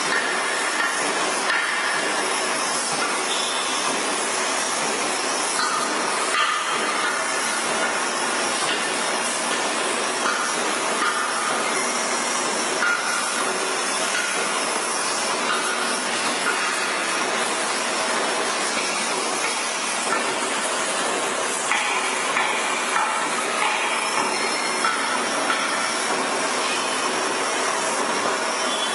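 Large metal-working lathe cutting steel, giving a steady loud grinding noise with short squeals of the cutting tool on the metal coming and going.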